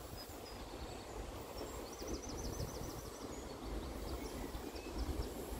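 A small songbird sings a quick trill of repeated high notes about two seconds in, then gives a few scattered chirps, over an uneven low outdoor rumble.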